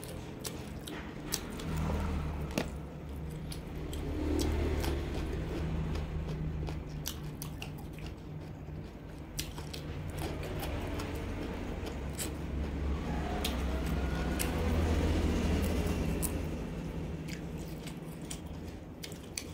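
Close-miked chewing of chili-salt roast duck: wet mouth sounds and many sharp crunching clicks from biting the crisp skin, over a low steady hum.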